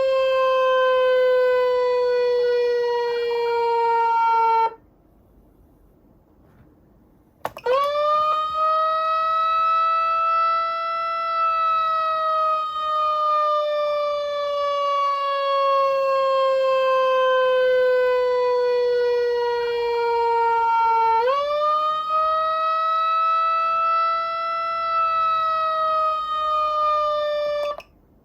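Whelen Cencom Sapphire siren amplifier sounding an electronic siren tone. The tone falls slowly and stops after about five seconds. After a pause of about three seconds it starts again with a quick upward sweep and a long, slow fall in pitch. A second quick rise comes about two-thirds of the way through, and the tone cuts off near the end.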